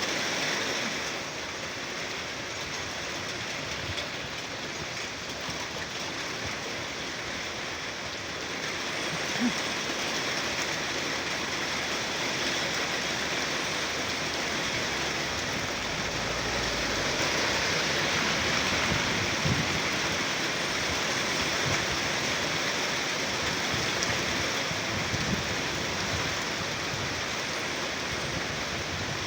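Steady rain falling, an even hiss throughout with a few louder drops or taps.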